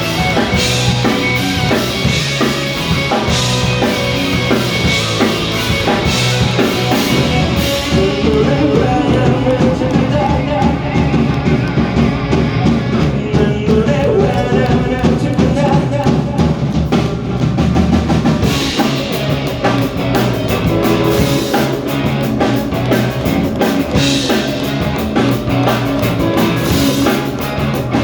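Rock band playing live, a drum kit keeping a steady beat under guitars.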